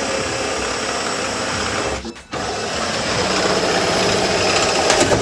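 Power drill running steadily, stopping briefly about two seconds in, then starting again.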